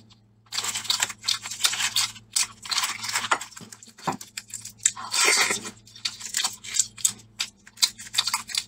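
Eggshell crackling as boiled eggs are cracked and peeled by hand: several long runs of crisp crackles and scattered clicks, with some chewing.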